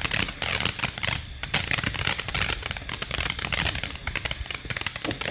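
Fireworks crackling: a dense, irregular run of small rapid pops that keeps going, rising and falling in loudness.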